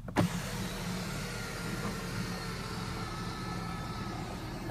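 Electric motor of the 2015 Jaguar XJL's power sunshade for the rear panoramic sunroof, sliding the shade closed. A click, then a steady whir with a faint thin tone that stops abruptly near the end.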